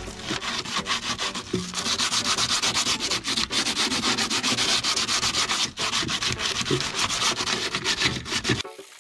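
Abrasive rubbing by hand on the Subaru 360's engine-bay panels in quick, scratchy strokes, scuffing the old finish as surface prep before painting. It stops abruptly near the end.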